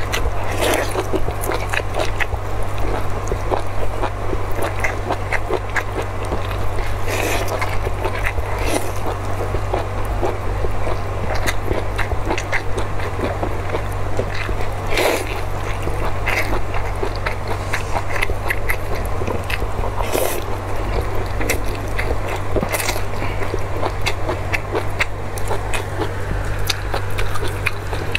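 Close-up eating sounds: wet chewing, smacking and slurping as strips of kelp and glass noodles are bitten and sucked in, many small mouth clicks in quick succession, over a steady low hum.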